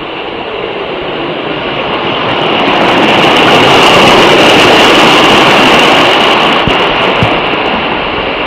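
Stream water rushing and splashing over rocks, swelling loudest in the middle where it pours down a small cascade, then easing off.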